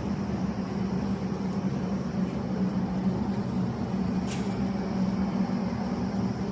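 Steady low motor hum with an even rushing noise over it, unchanging throughout.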